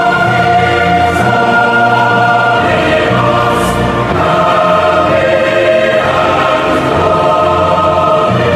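Choir singing slow, held chords over orchestral accompaniment, the chord changing every second or two.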